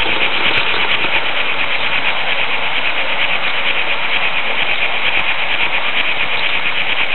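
Märklin H0 model train running along the track: a steady, fast-pulsing whirr of the motor and wheels, heard close up from a camera riding on a flat car.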